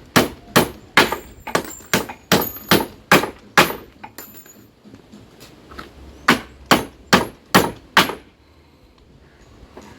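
A hammer striking nails in old wooden boards: a run of about a dozen blows, roughly three a second, some with a short metallic ring. After a pause of about two seconds come five more blows.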